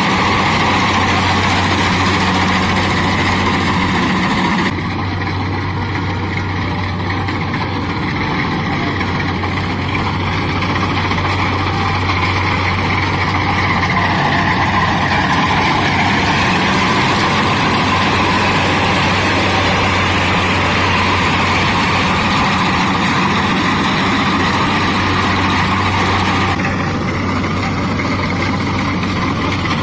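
Kubota DC-70 combine harvester's diesel engine running steadily with the machine's threshing and cutting noise over it. The sound shifts abruptly about five seconds in and again near the end.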